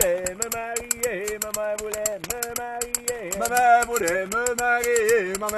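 Two men singing a wordless refrain of a Québécois folk song, one holding a low line while the other carries the tune. A rattling percussion keeps a quick, steady beat under the voices.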